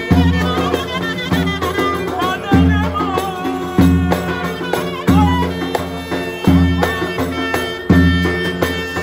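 Turkish folk music played live: a davul bass drum booms about every 1.3 s under a wavering clarinet melody, with a hand drum, a bowed string instrument and a man singing.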